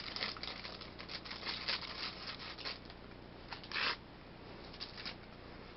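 Scratchy rustling and handling noise from a handheld camera being moved about, with a short louder rustle just before the four-second mark.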